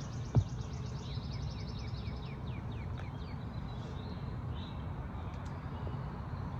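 Songbirds singing: a fast high trill, then a run of quick down-slurred notes, and a few fainter calls after. A steady low rumble runs underneath, and a single thump comes about half a second in.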